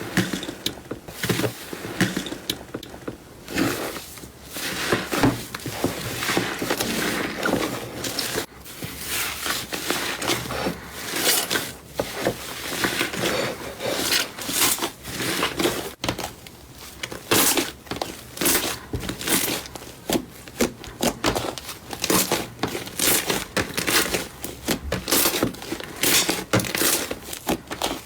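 Slime being squeezed, pressed and poked by hand, giving a continuous run of irregular crackles, clicks and squelches.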